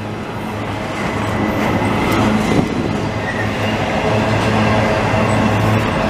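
Autorack freight cars of a passing freight train rolling by: a steady rumble of steel wheels on the rails with a low hum, growing slightly louder.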